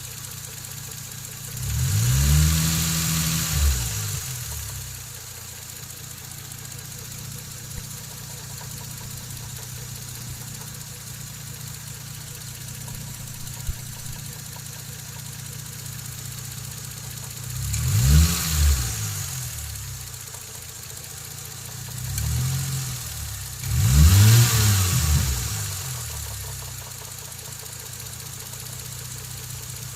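Toyota 1JZ straight-six engine idling, revved briefly several times, its pitch rising and falling back each time. It is being run to show a knock (стук) in the engine.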